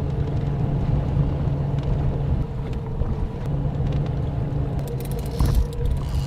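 Boat motor running steadily with an even low hum, a few light clicks and knocks near the end.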